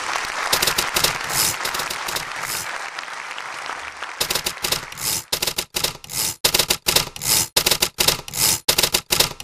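Theatre audience applauding: dense, mixed applause for the first few seconds, which then turns into rhythmic clapping in unison, about two to three claps a second.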